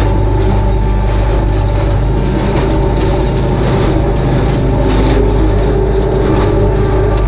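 Tractor engine running steadily with its hay implement working behind it.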